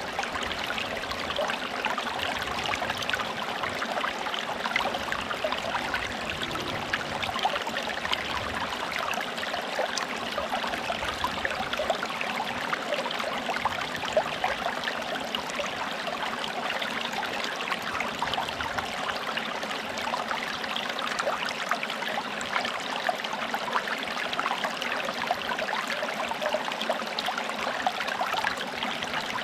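Forest stream running steadily over stones, a continuous babble and trickle of water.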